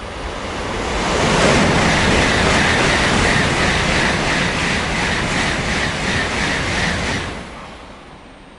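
An N700-series Shinkansen passing through the station at speed without stopping. It is a rising rush of wheel and air noise that holds loud for about six seconds, with a quick regular beat as the cars go by and a steady high tone. The noise cuts off sharply about seven seconds in as the tail clears, leaving a fading rumble.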